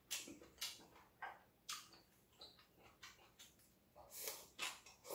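Faint eating sounds: scattered short mouth clicks and smacks of chewing, with breathing through the nose. About four seconds in comes a longer, louder rush of noise as food is scooped from a bowl into the mouth with chopsticks.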